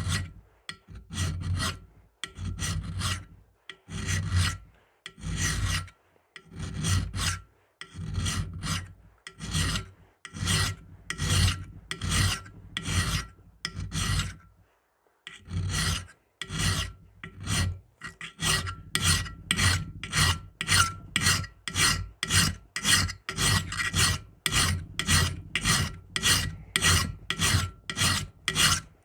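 Hand file rasping across the spine of a knife clamped in a vise, in steady strokes that stop briefly about halfway and then quicken to about two a second: the spine is being filed square so it will throw sparks off a ferro rod.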